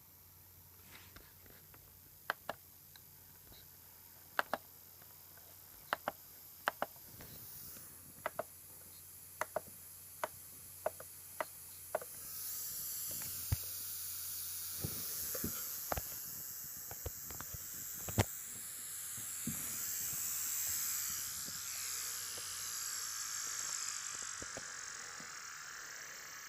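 Faulty sound from an Acer Aspire 5742 laptop. For the first twelve seconds there are sharp clicks in pairs about every second and a half. About halfway through, a loud, wavering high hiss sets in and carries on to the end.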